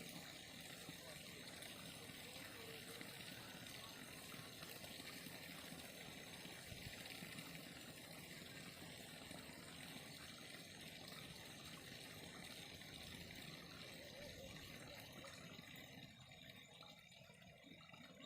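Faint, steady flow of water running in a stream or channel, easing a little near the end.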